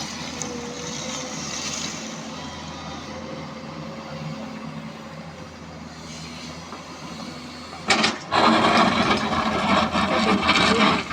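JCB 3DX backhoe loader's diesel engine running steadily. About eight seconds in, a loud, rough, clattering noise breaks in and lasts about three seconds.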